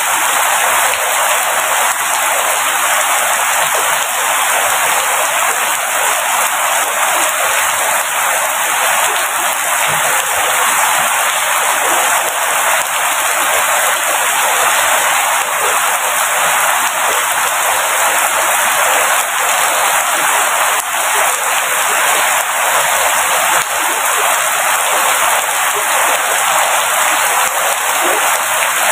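Steady rain falling, an even hiss of many drops with little deep rumble beneath it.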